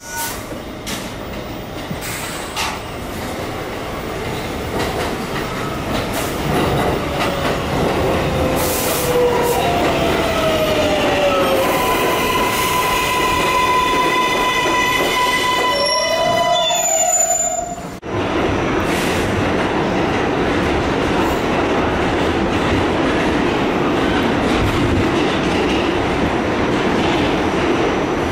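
New York City subway train at an elevated platform: electric motor whine that glides down, holds a steady pitch, then rises again, over wheel and rail noise with some squeal. After an abrupt cut about two-thirds of the way in comes the steady rumble of riding inside a moving subway car.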